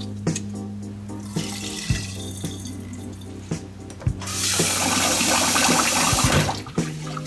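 Rice being rinsed by hand in a pot of water in a stainless steel sink, then a kitchen tap running hard into the pot for about two seconds, refilling it for the next rinse. Soft background music with steady low notes and a light beat plays throughout.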